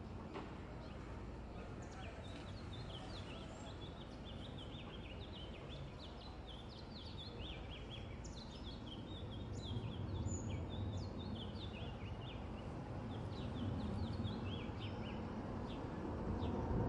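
Small birds chirping busily, over the low rumble of an approaching Boeing 777's jet engines that grows louder toward the end.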